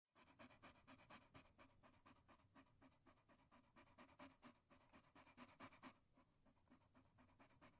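A dog panting, rapid and rhythmic at about four to five breaths a second, growing lighter after about six seconds.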